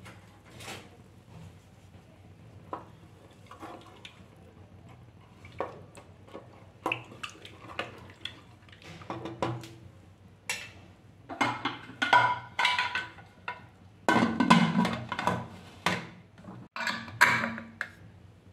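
Aluminium Pigeon pressure cooker being closed: the lid knocks and clanks against the pot with short metallic rings. The knocks are sparse at first and come thick and loud in the second half as the lid is fitted and locked.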